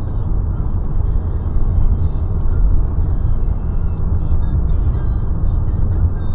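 Steady low road rumble of a car driving on a highway, tyre and engine noise heard from inside the cabin through a dashcam's microphone, with faint music over it.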